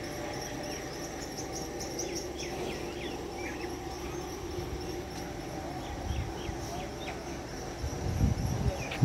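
Outdoor ambience with a steady high insect trill and short bird chirps a few times over it. Low rumbling on the microphone starts near the end.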